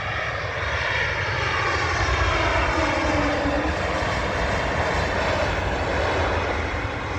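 Airliner's engines passing by on landing, loud and steady, with a pitch that slides downward as it goes past.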